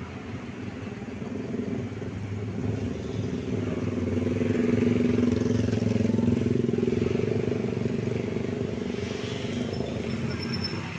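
Diesel locomotive engine running with a low, steady rumble as the locomotive rolls slowly. It swells to its loudest about halfway through, then eases off a little.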